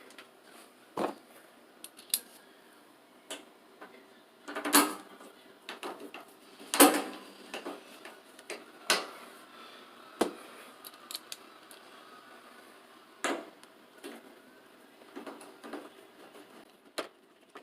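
Scattered clicks, taps and knocks of hard objects being handled at irregular times, the loudest knocks about five and seven seconds in.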